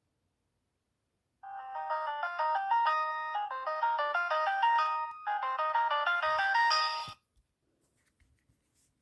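Ringtone melody of quick synthesised notes playing from a Nokia 2760 Flip phone's speaker. It starts about a second and a half in, breaks off briefly around the middle, resumes, and cuts off suddenly about two seconds before the end, with a few soft knocks just before it stops.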